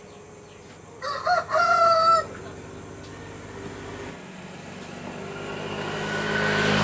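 A rooster crows once, about a second in: a rising call held briefly on one pitch. Later a rumbling noise grows steadily louder toward the end.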